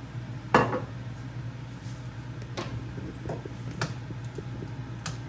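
Kitchen cookware knocks: one sharp knock with a short ring about half a second in, then three lighter clicks, over a steady low hum.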